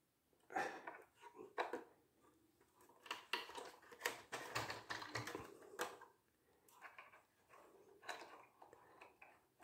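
Faint, irregular clicks and taps of hands handling a hard plastic RC military truck: fingers knocking on the body and cab as the truck is turned on the table.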